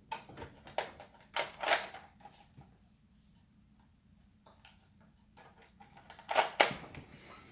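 Nerf blaster being handled: clicks and clacks in two clusters, the first about a second and a half in and a louder one near the end, with quiet between.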